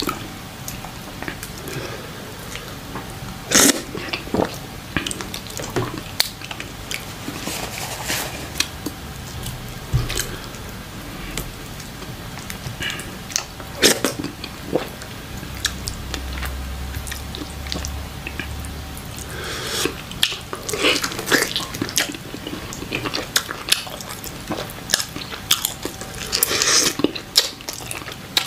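Close-miked eating of fufu and chicken stew by hand: wet chewing and mouth noises, with many short sharp clicks scattered throughout.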